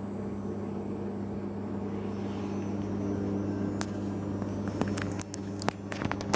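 Steady electrical hum, with a series of short sharp clicks in the last two seconds or so, the loudest at the very end.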